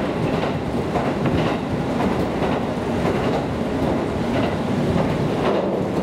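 Running noise inside a JR Kyushu KiHa 200 diesel railcar under way: a steady low rumble of wheels on rail, with scattered sharp clicks as the wheels pass over rail joints.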